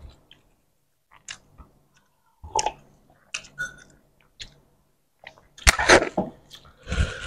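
Close-miked mouth sounds of eating roti canai soaked in curry gravy: scattered wet chewing and lip smacks, sparse at first and coming thicker near the end.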